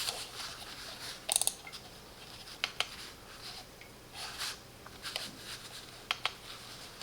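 Small plastic clicks from a computer mouse's buttons being pressed to cycle its RGB lighting effects, several single and paired clicks with a rattly cluster about a second and a half in, amid soft handling noise.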